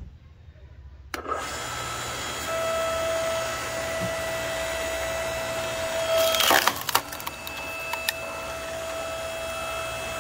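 Ryobi 15-amp compact electric log splitter starting about a second in, its motor and hydraulic pump running with a steady hum and whine as the ram drives into a notched log. A loud cracking and splintering about six seconds in as the wood splits, followed by a sharp crack, while the motor keeps running.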